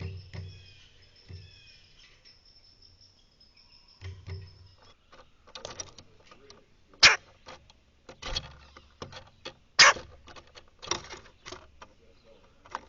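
Small songbirds calling: a thin high steady note and a few short falling chirps. These give way about five seconds in to a run of irregular sharp taps and knocks, several of them loud and sudden.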